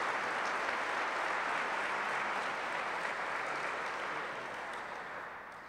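Audience applauding steadily, the clapping thinning out and fading over the last second or two.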